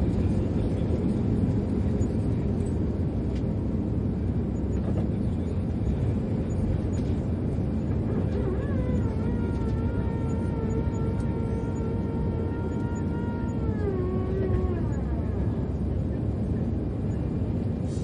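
Airbus A320 cabin: the steady, low rumble of the jet engines and airflow heard from inside. About halfway through, a whine with several overtones comes in, holds steady for about five seconds, then glides down in pitch and fades.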